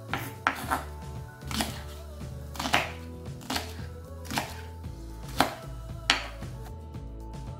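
Kitchen knife chopping an onion on a wooden cutting board: about ten separate, irregularly spaced knocks of the blade striking the board, over background music.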